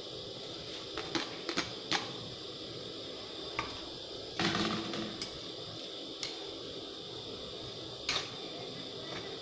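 Metal tongs and a utensil clicking and knocking against an aluminium wok as shredded bamboo shoots are tipped in and stirred, with one longer, louder scrape about four and a half seconds in, over a steady hiss.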